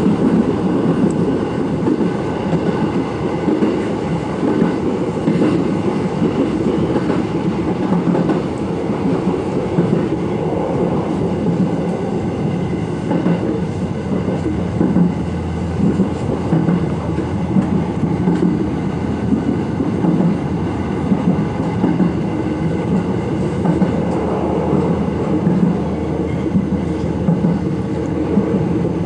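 Electric commuter train running along the line, heard from the front of the train: a steady rumble of wheels and running gear, with clacking over rail joints.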